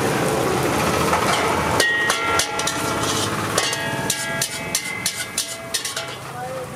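Metal ladle clanking and scraping against a wok while fried rice is stir-fried: a quick run of ringing metallic clanks that starts about two seconds in and thins out near the end. Before the clanks there is a steady hiss of frying.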